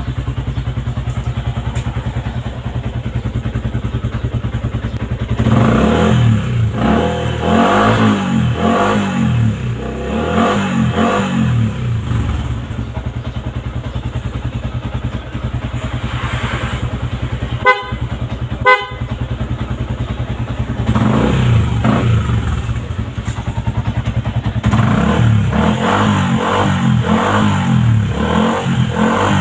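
Yamaha Sniper 150's single-cylinder four-stroke engine breathing through an aftermarket Kalkal exhaust pipe: idling, then blipped in a run of quick revs about five seconds in, settling back to idle, and revved again in repeated blips from about twenty-one seconds in. Two short horn beeps come about a second apart near the middle.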